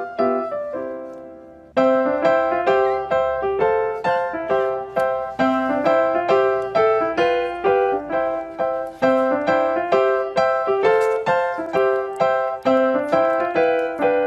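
Background piano music: a quick, bouncy melody of short plucked-sounding notes, pausing on a fading chord about a second in before picking up again.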